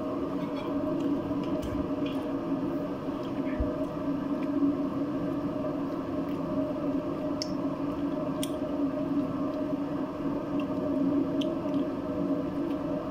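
A steady hum of several fixed pitches, with a few faint soft clicks and smacks from biting and chewing a sandwich.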